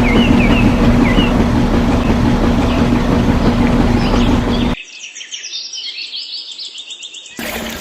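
A steady machine-like hum under a loud rushing noise, with a few chirps, cuts off suddenly about five seconds in; birds chirping rapidly follow.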